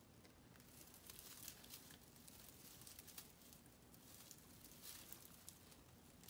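Faint rustling and crinkling of artificial Christmas tree branches and a twist tie as hands fasten a string of LED lights to a branch, in small scattered scratches.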